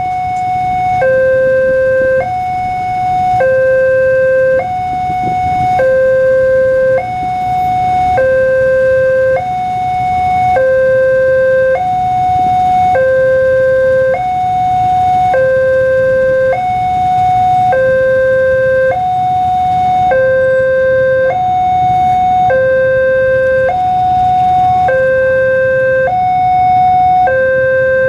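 Railway level-crossing electronic warning alarm sounding its two-tone signal. It switches steadily between a higher and a lower tone, each held a little over half a second. The crossing is active, warning that a train is approaching.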